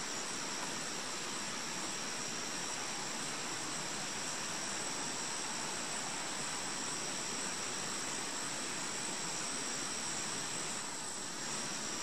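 Steady outdoor background hiss with a constant thin high-pitched whine over it; the heron does not call.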